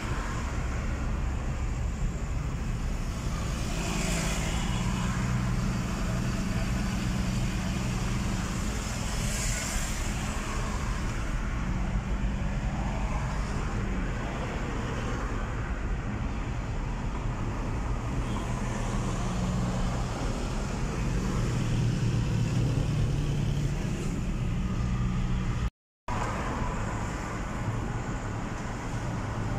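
Car engine and road noise heard from inside a moving car: a steady low hum with a couple of brief louder swells, cutting out for a moment near the end.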